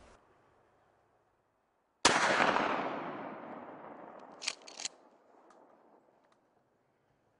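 A single deer-hunting gunshot: one sharp, loud crack that echoes away over about three seconds, followed by two short sharp clicks.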